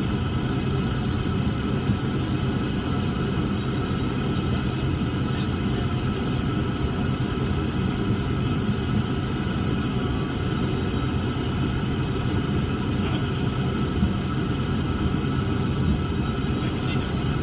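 Cessna 340's twin piston engines and propellers running steadily at low taxi power, heard inside the cockpit as a constant drone with a low rumble.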